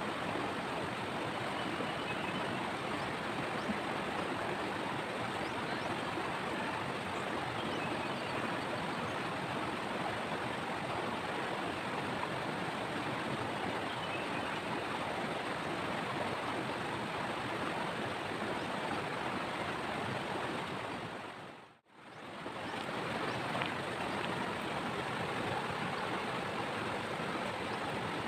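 River water rushing over rocks in shallow rapids, a steady hiss of moving water. The sound briefly fades out and back in near the end.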